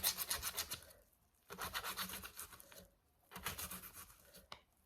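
A big kitchen knife cutting through an onion on a cutting board, in three bursts of quick strokes with short pauses between them.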